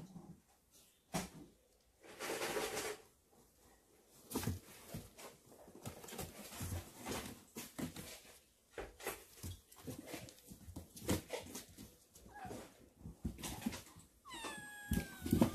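Kitten meowing once near the end, a high call that falls in pitch. Before it, scattered small knocks and rustles of kittens eating and moving about.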